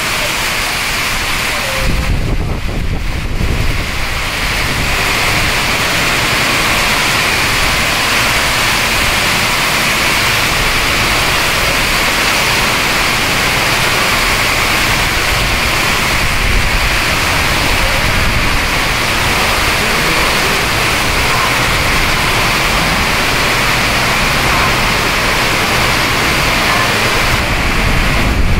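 Steady heavy rain falling, a constant hiss, with a brief low rumble about two seconds in.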